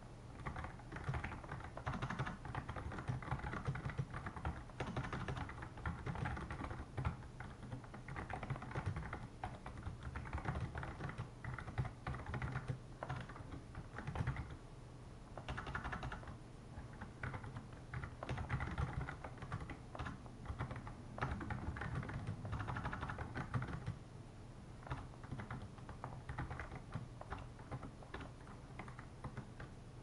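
Typing on a Razer Ornata Chroma mecha-membrane keyboard: a steady run of quick key clicks, with a couple of short pauses.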